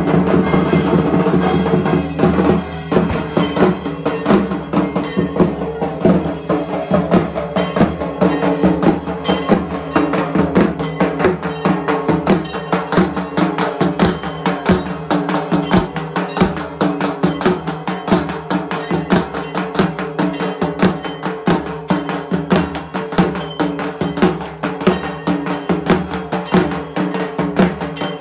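Dhak drums beaten in a fast, unbroken rhythm, with a bell-metal kansar gong clanging along, as played during Durga Puja worship. The sound is loudest and fullest for the first two seconds.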